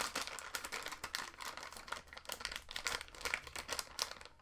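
Crinkling and rustling of packaging being handled while rummaging for a RAM stick: a dense, irregular run of small crackles.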